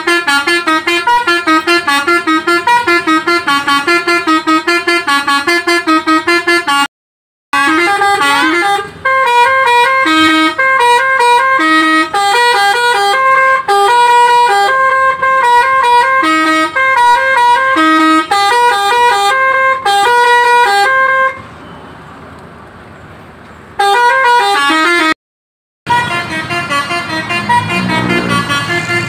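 Alzifa Airhorn V2.0 telolet multi-tone bus air horn playing loud, quick tunes of short stepped notes, broken twice by a brief dead silence and once by a few seconds of much quieter background noise. Near the end a lower, rougher tone with a rising pitch takes over.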